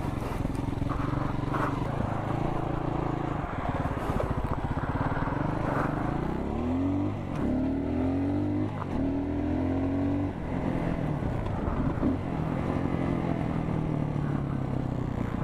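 Dirt bike engine running under way, its pitch rising sharply several times in a row in the middle as the rider accelerates up through the gears, then settling back to a steady note.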